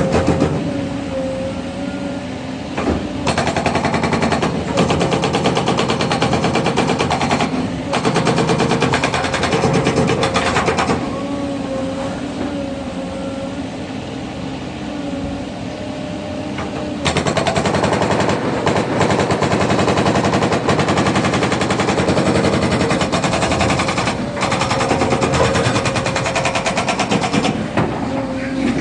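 Hydraulic breaker on a Caterpillar 307 excavator hammering in rapid, continuous runs of blows. There is a pause of about six seconds midway, when only the excavator's engine and hydraulics are heard running.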